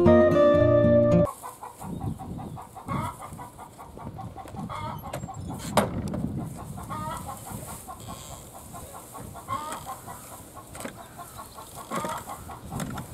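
Acoustic guitar music that stops about a second in, followed by domestic chickens clucking in short repeated calls around a farmyard poultry house. A single sharp click sounds about halfway through.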